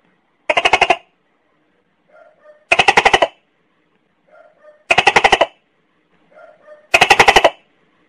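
Tokay gecko calling: four loud, rapidly pulsing calls about two seconds apart, with softer short notes between them.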